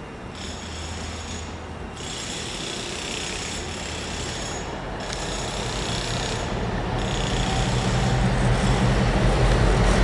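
Class 60 diesel locomotive's Mirrlees eight-cylinder engine growing steadily louder as it approaches hauling a loaded freight train, its low engine note strongest near the end.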